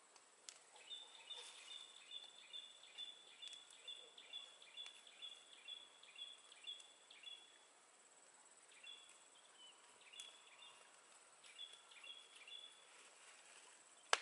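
A bird calling, a long run of short high two-pitched notes repeated evenly about two and a half times a second, then after a pause three shorter runs of the same notes.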